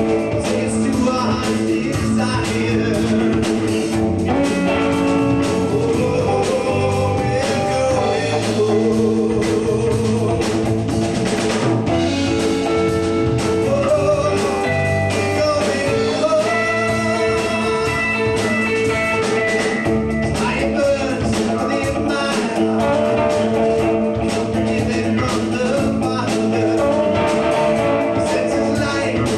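Live rock band playing: electric guitar, electric bass and drum kit, amplified, in a continuous loud passage.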